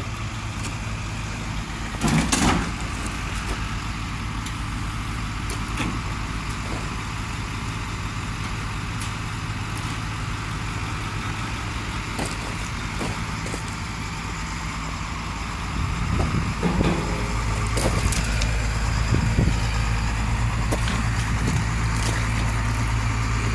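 A heavy diesel engine, most likely the excavator doing the lift, running steadily throughout, then getting louder and working harder from about two-thirds of the way in. One loud knock sounds about two seconds in, and a few lighter knocks come later.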